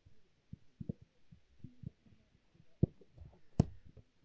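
Soccer ball struck during shooting practice at a goalkeeper: a sharp thud just before three seconds in and a louder, sharper one shortly before the keeper's dive. Soft, irregular low thumps run underneath.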